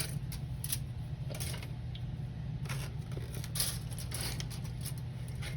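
Scattered light clicks and rustles of plastic model-kit parts and paper being handled, over a steady low hum.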